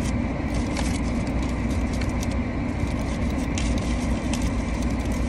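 Aluminium foil wrapper and paper bag crinkling in short, scattered bursts as a burrito is handled, over a steady low hum in a car cabin.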